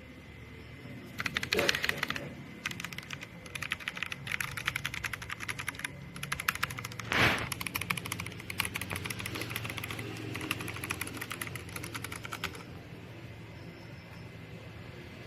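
Keystrokes on an NYK Nemesis Daemon82 wireless mechanical keyboard: rapid typing clatter that starts about a second in and stops shortly before the end, with one louder keystroke about seven seconds in.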